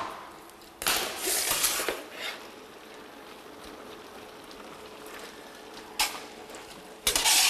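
Dry onion skin being peeled and scraped off a large onion with a small knife: crackly rustling in bursts, a longer one about a second in, a short one later and a loud one near the end.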